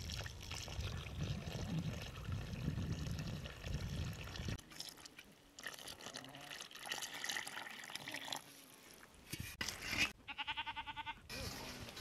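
Milk poured in a thin stream from a metal pot into flour in a metal mixing bowl, with the hiss and trickle of the stream, as a hand works the flour. Near the end an animal from the flock bleats once, in a short wavering call.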